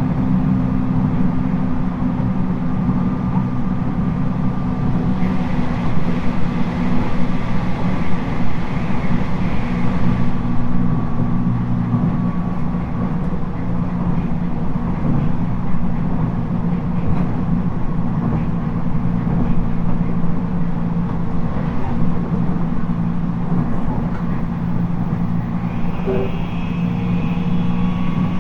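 Steady running sound inside a JR East 719 series electric train at speed: a sustained low motor and gear hum over wheels rumbling on the rails. This unit is known for its unusual jet-like noise, and a higher whine joins in near the end.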